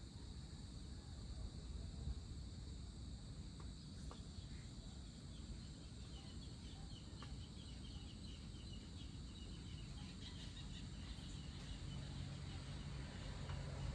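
Faint evening chorus of crickets and other insects trilling steadily, with a quick run of higher chirps through the middle, over a low background rumble.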